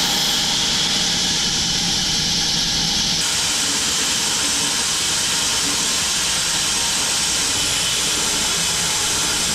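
Home-built wide bandsaw mill running and sawing through an acacia log, a loud, steady hissing machine noise; its tone shifts slightly about three seconds in.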